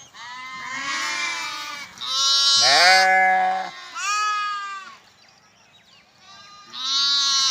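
Sheep and lambs bleating: about four loud calls of different pitch, overlapping in places, with a lower, deeper bleat about two and a half seconds in and fainter bleats between them.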